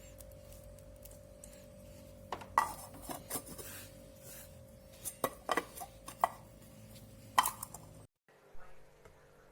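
Scattered sharp metallic clinks and taps as the stainless steel coffee grinder's bowl and lid are handled, over a faint steady hum. It cuts off abruptly near the end.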